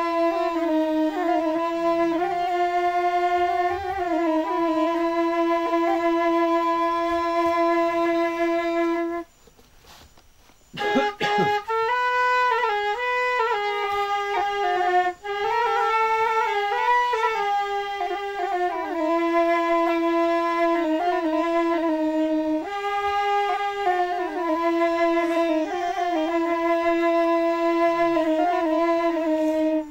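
A wind instrument playing a slow melody of long held notes that step up and down in pitch. It breaks off for about a second and a half around nine seconds in, then resumes.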